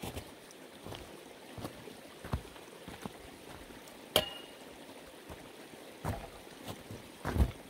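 Scattered knocks and thumps, with one sharp metallic clink about four seconds in that rings briefly.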